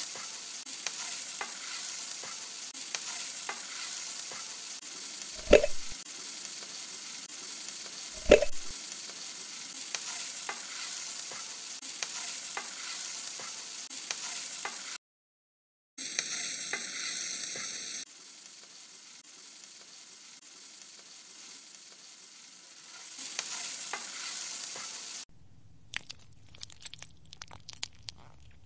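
Thick tomato-vegetable masala sizzling in a stainless steel kadai while a spatula stirs it, with two loud clanks of the spatula against the pan, about five and a half and eight seconds in. The sizzle cuts out for a moment about halfway and returns in shorter, quieter stretches, ending in a patch of light clicks and taps.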